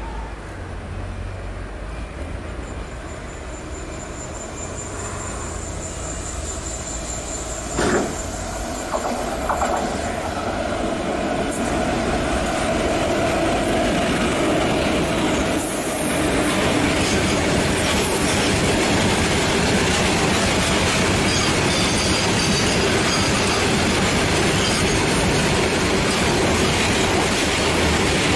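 Loaded freight train, hauled by an electric locomotive, approaching and passing close by. It grows steadily louder as the locomotive comes past, with two short loud sounds near the middle, then gives a steady heavy rumble as the loaded wagons roll past.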